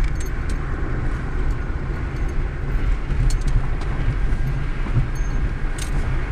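Wind buffeting and road noise heard from inside a moving car with the side window down, a heavy uneven low rumble, with a few faint light clicks.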